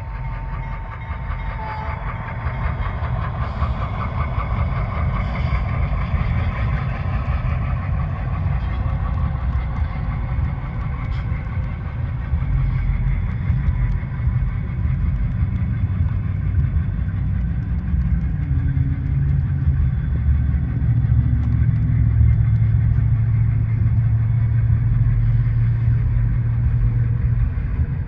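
Diesel engine sound from an HO-scale model of a GE B23-7 locomotive: a steady low running drone. It grows louder and settles into a firmer hum over the last several seconds.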